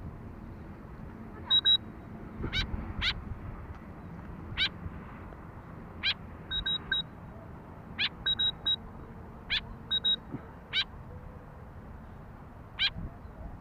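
White-breasted woodswallow calling: short, harsh, sweeping calls about once a second. Between them come groups of two or three short, high, pure pips.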